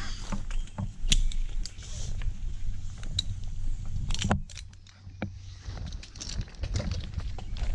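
Metal climbing gear clinking and jangling in irregular clicks and knocks as a tree climber works his way up, over a steady low rumble.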